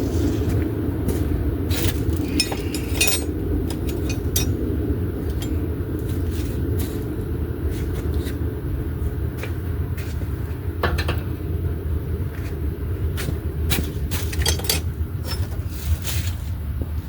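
Scattered metallic clicks, clinks and a scrape from tools and parts being handled, over a steady low rumble.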